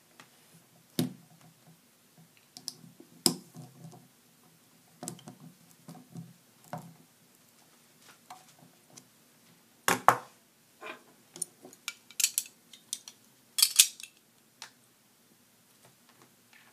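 Irregular clicks, taps and light metallic knocks of a Conair curling iron and its small parts being handled during a spring replacement, with the loudest knock about ten seconds in and a quick run of sharp, high clicks a little later.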